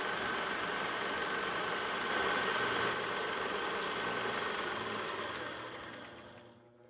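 A steady engine-like running noise with a thin, steady high whine, fading out over the last second and a half.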